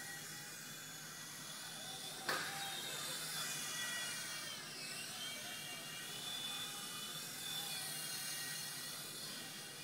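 WLtoys V911 Pro micro RC helicopter's electric motor and rotor whining steadily in flight; the pitch dips briefly around the middle and climbs back. A single sharp knock about two seconds in.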